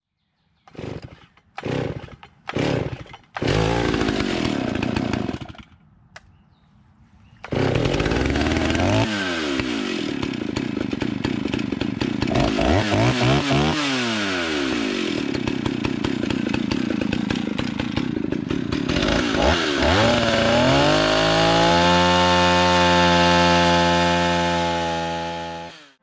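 Stihl 028 Wood Boss two-stroke chainsaw. It sputters in a few short bursts as it is started and runs briefly, then after a short pause runs at full throttle, milling a log in an Alaskan chainsaw mill. Its pitch drops several times as it bogs under load and recovers, then rises to a steady high pitch near the end.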